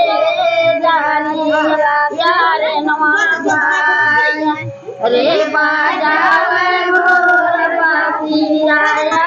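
Girls and women singing together in high voices, a devotional folk song for Karma puja, with long held notes and a short break about halfway through.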